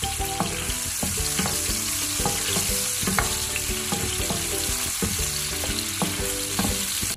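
Garlic, onion and tomato sizzling in hot oil in a frying pan, stirred with a wooden spatula that scrapes and knocks against the pan again and again.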